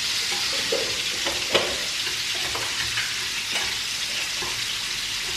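A wire whisk mashing boiled potatoes in a metal pot, with irregular clinks and scrapes against the pot. Under it runs the steady sizzle of ribeye steak searing in a pan.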